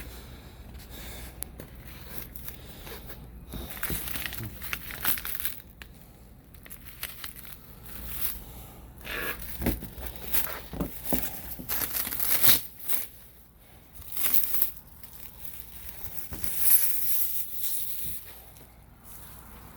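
Shipping packaging being torn and crumpled by hand: irregular crinkling and ripping, with several sharper, louder rips in the second half.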